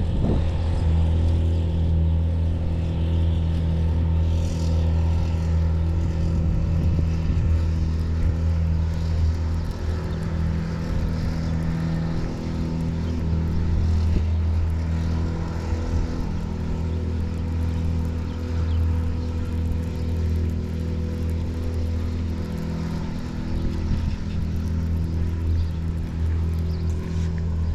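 A steady low mechanical hum, like an engine running at an even speed.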